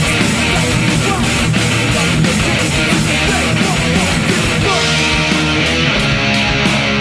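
Loud live band playing heavy, driving rock, with electric guitars, bass and drums. About five seconds in the cymbals drop away and held guitar notes ring on.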